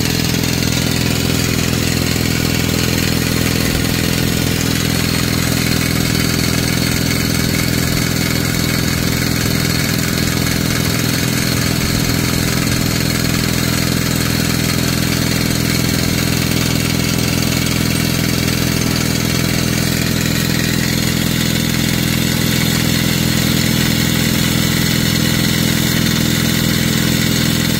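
Pneumatic rock drill on a crawler drill wagon running without a break, hammering and turning the drill steel into rock to bore a blast hole. The sound is a loud, steady, dense mechanical din.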